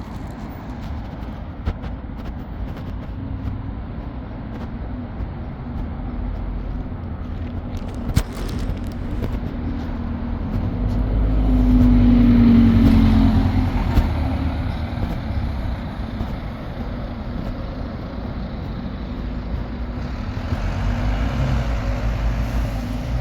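Road traffic passing: vehicle engines and tyres running steadily. One vehicle passes close and is loudest about halfway through, its engine hum dropping slightly in pitch as it goes by.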